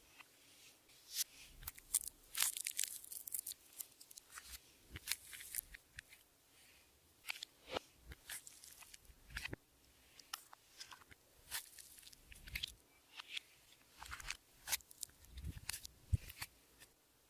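Clear slime being kneaded and squeezed by hand, giving off irregular sticky clicks and crackles, several a second with brief pauses.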